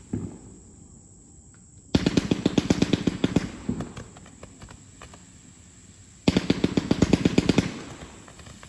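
Consumer compound firework cake firing: a single bang at the start, then two rapid runs of sharp cracks about four seconds apart, each lasting about a second and a half and fading away.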